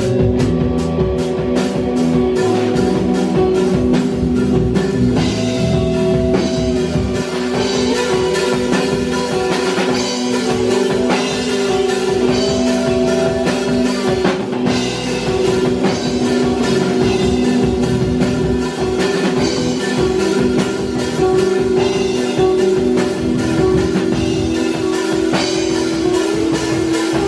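Live rock band playing loud: electric guitars holding long sustained notes over a drum kit beating steadily.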